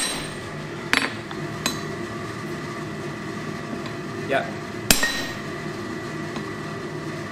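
Hammer blows on a red-hot steel block over an anvil: a strong blow about a second in, a lighter one just after, and another strong blow near five seconds, each with a short metallic ring. A short rising squeak comes about half a second before the last blow.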